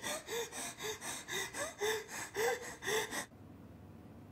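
A woman hyperventilating: quick, gasping breaths at about three a second. They stop abruptly about three seconds in, leaving faint room tone.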